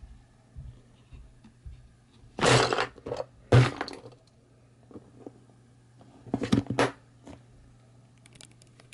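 A blue plastic pencil case's lid is pressed shut on a maple leaf cookie, crushing it: three loud crunching clatters of cookie and plastic, about two and a half seconds in, near four seconds, and again around six and a half seconds, with a few light knocks between.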